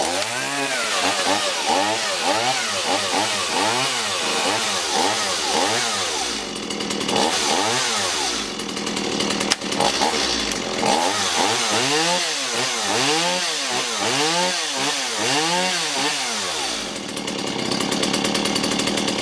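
Stihl MS170 two-stroke chainsaw running just after its first start, with the throttle blipped over and over so the engine rises and falls in pitch about once a second. It holds a steadier high speed for a few seconds in the middle and again near the end.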